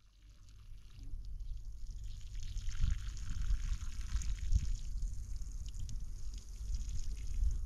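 Water pouring from a plastic jerrycan and splashing onto dry soil, heaviest a few seconds in, over a low rumble.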